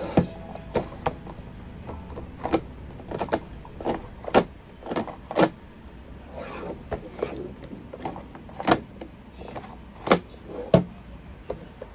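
A small hard-plastic three-drawer desk organiser being handled: irregular clicks and knocks of plastic on plastic, with drawers sliding in and out between them.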